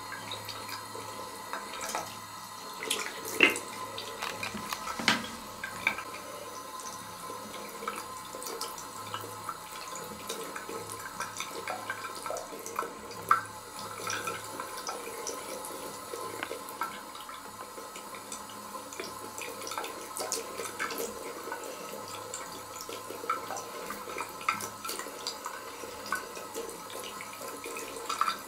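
A thin stream of water running from a bidet tap into its ceramic basin, a steady trickle and splash. A few sharp clicks stand out, the loudest about three and a half seconds in and again around thirteen seconds.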